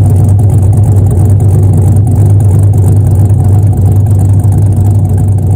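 Exhaust of a 2002 Camaro SS's LS1 V8 idling, heard from behind the car. It has a BTR Stage 1 cam, long-tube headers and a true dual exhaust.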